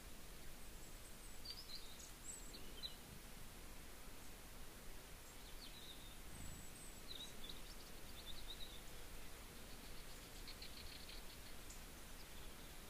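Faint outdoor ambience with scattered short, high bird chirps, and a quick rapid trill about ten seconds in.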